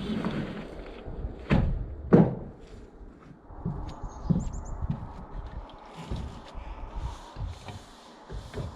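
Footsteps and a run of knocks and thumps from handling heavy objects, with two heavier thuds about one and a half and two seconds in.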